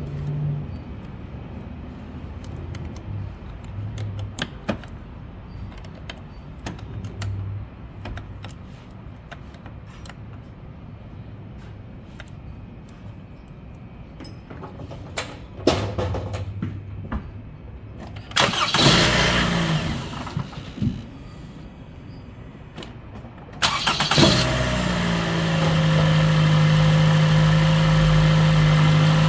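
Toyota Camry engine cranked and started after its alternator was replaced, settling within a second into a steady idle. A loud burst of noise comes a few seconds before the start, and light clicks and knocks come before that.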